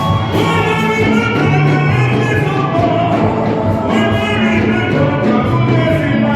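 Loud music with singing voices and a steady beat.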